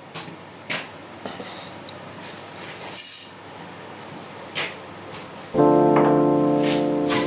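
Background music: a sustained keyboard chord comes in suddenly about five and a half seconds in and holds. Before it there are only scattered light clicks and a brief metallic clink.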